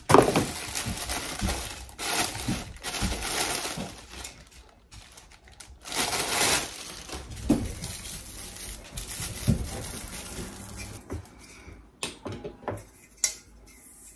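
Plastic wrapping crinkling and rustling in bouts as it is pulled off a stainless steel steamer insert, with a few sharp clicks near the end.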